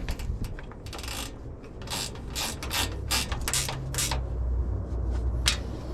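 Hand socket ratchet clicking in short runs as 10mm nuts and bolts holding a compact tractor's side panel are worked loose.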